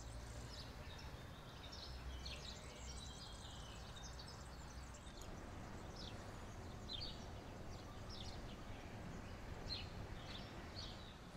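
Birds chirping and singing in short, scattered calls over a low, steady rumble of background noise.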